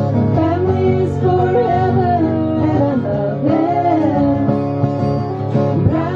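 Women singing together to acoustic guitar accompaniment, the voices holding and gliding between notes over steady strummed chords.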